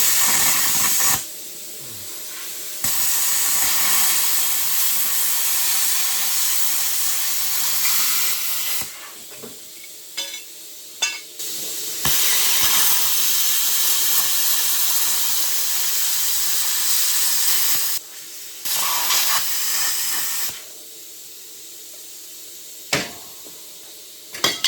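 Plasma cutter cutting through steel in several long hissing passes, each a few seconds, with short pauses between. A few metal knocks fall in the gaps.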